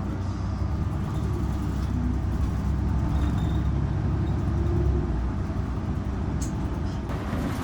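Steady low rumble of a motor vehicle or traffic.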